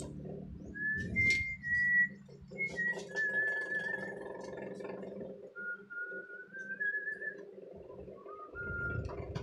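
A person whistling a slow tune in held notes, some with a slight waver, with a few light clicks from small parts being handled.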